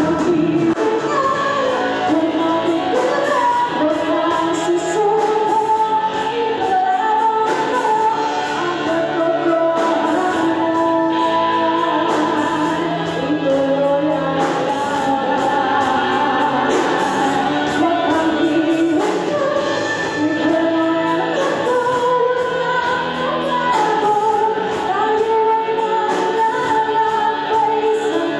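A woman singing into a handheld microphone over instrumental accompaniment, holding long notes in a continuous melody, her voice amplified through a sound system.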